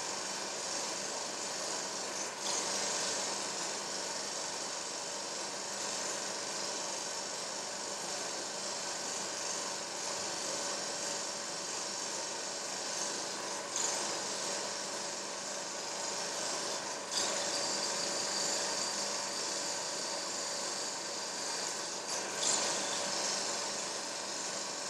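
A steady mechanical whirring hum with hiss, broken by a few sharp clicks about two, fourteen, seventeen and twenty-two seconds in.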